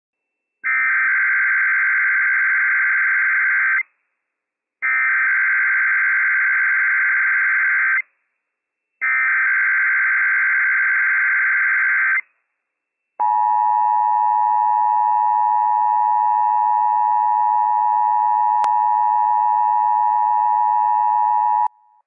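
Emergency Alert System Required Monthly Test on NOAA Weather Radio: three bursts of the SAME digital header, a buzzy data warble each about three seconds long with a second's gap between them, then a steady attention tone held for about eight seconds.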